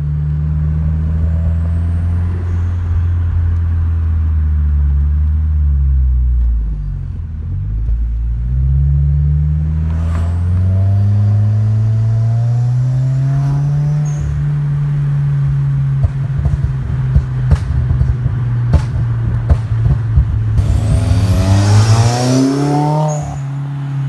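2016 Subaru WRX's turbocharged flat-four running through a catless downpipe and Invidia R400 cat-back exhaust on a stage 2 tune with burble. The engine note falls and rises as the car is driven, then a long run of crackles and pops in the second half, and a rising rev near the end.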